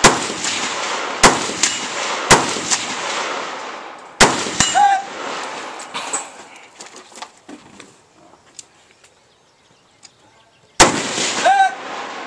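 Rifle shots fired at steel targets, several of them followed about half a second later by a short ring from a hit steel plate downrange. Three shots come in the first two and a half seconds and two more just after four seconds; after a quiet lull of several seconds, one more shot and its ring come near the end.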